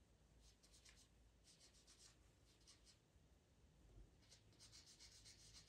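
Faint scratching of a Faber-Castell Pitt pastel pencil on PastelMat paper, laying down fine whisker lines in several quick groups of short strokes.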